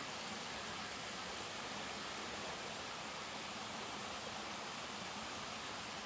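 Mountain stream and waterfall rushing steadily after rain, an even unbroken wash of water noise.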